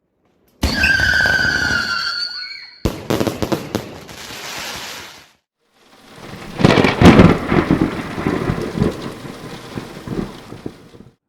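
Fireworks in three abrupt stretches: falling whistles over crackling, then dense crackling, then a run of heavy bangs about seven seconds in that tails off into scattered crackles.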